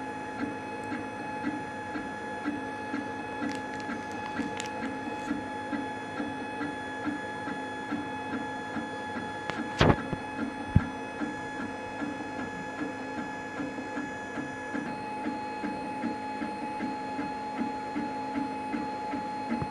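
Monoprice Select 3D printer printing: its stepper motors buzz in short rhythmic moves over a steady high whine. Two sharp clicks come about ten and eleven seconds in.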